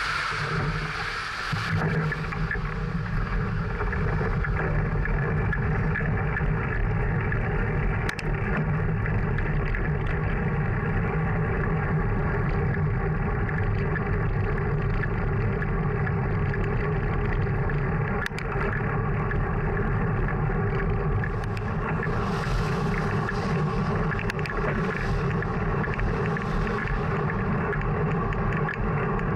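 Steady wind and tyre rumble picked up by a bicycle-mounted action camera while riding on an asphalt road, with a brighter hiss for a few seconds late on.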